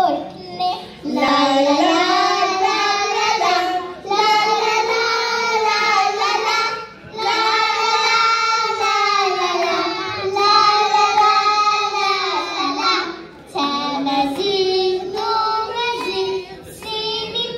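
A group of young girls singing a melody together into microphones, in long held phrases with short pauses between them.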